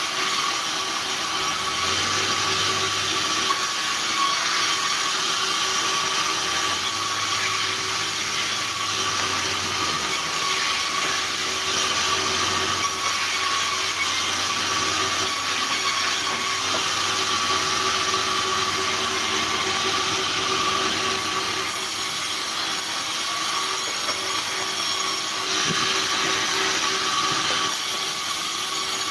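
Sawmill band saw running and ripping logs lengthwise: a steady, even machine noise with a constant high whine from the blade cutting through the wood.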